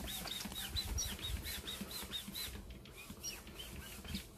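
Hand air pump working fast to inflate a gym ball, about four or five strokes a second, each stroke a hiss of air with a short high squeak. The pumping breaks briefly about three seconds in.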